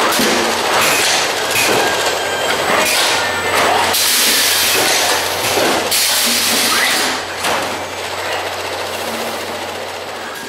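Automated trolley packing machine running at full speed on plastic four-pint milk bottles: continuous mechanical clatter and rattling with a steady hum underneath. There is a brighter hissing stretch for about two seconds in the middle, and a few short squeals.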